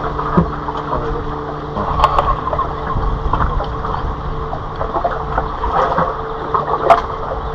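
A steady low engine hum with a couple of sharp knocks, about two and seven seconds in.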